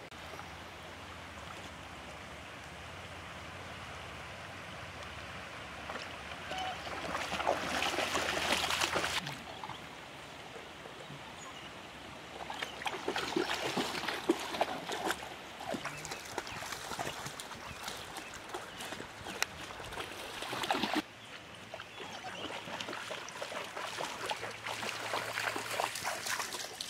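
Shallow creek water running over stones, with scattered splashes. It grows louder in a few stretches and drops off sharply about nine and twenty-one seconds in.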